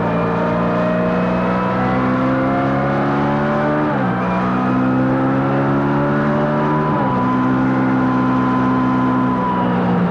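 A vehicle engine pulling under load through the gears: its pitch climbs slowly, drops sharply at an upshift about four seconds in and again about seven seconds in, then holds nearly level.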